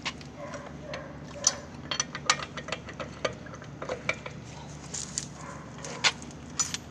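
Scattered metal clinks and taps of a lug wrench being handled and fitted onto a car wheel's lug nuts, over a steady low hum.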